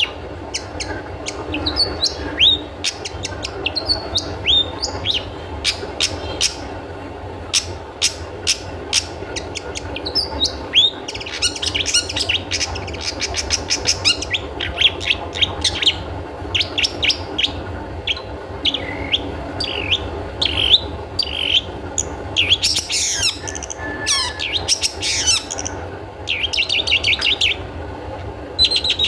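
Long-tailed shrike (cendet) calling: a string of short, sharp notes that slur downward, breaking in places into fast chattering runs, over a steady low hum.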